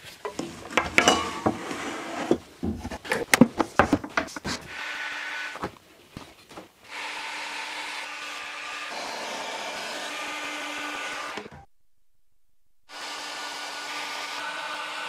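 Knocking and clattering for the first few seconds. Then a hot-air plastic welding gun's blower runs steadily with a hiss and a low hum while a polyethylene tank seam is fan-welded with filler rod. It breaks off for about a second near the end and then runs again.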